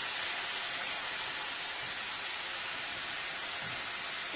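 Arborio rice and leeks sizzling steadily in a frying pan with stock, stirred with a wooden spoon.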